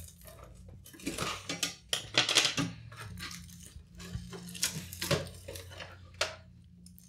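Crinkly old tape being snipped and torn as an Iomega Jazz drive is worked loose from a metal drive cage: irregular crackling, tearing and metallic scraping and clatter in short clusters.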